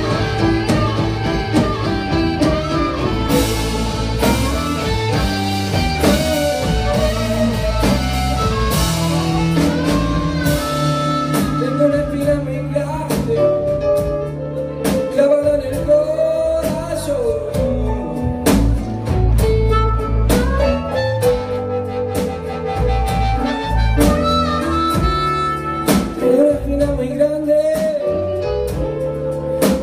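A band playing live: a blues-style number with drums, bass, and a melodic lead line.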